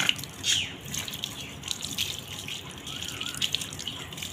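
Wet rubbing and splashing as a German Spitz's soaked coat is lathered and scrubbed by hand with a bar of soap, water dripping and sloshing, in short irregular strokes.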